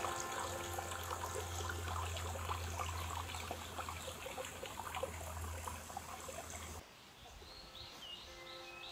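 A small garden stream trickling and splashing over stones. About seven seconds in it cuts off abruptly, leaving a quieter background with a few bird chirps.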